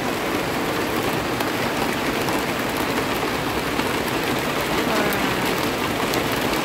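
Heavy rain falling steadily on the leaves of potted roses and on overhead shade netting.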